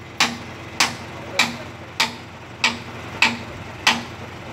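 Hammer striking the steel body of a dump truck in a steady rhythm, a little under two strikes a second. Each blow is sharp, with a short metallic ring after it.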